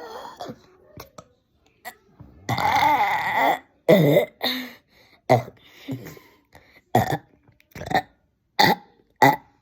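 A person burping repeatedly: a short burp at the start, one long, loud, wavering burp about two and a half seconds in, then a run of short burps about once a second.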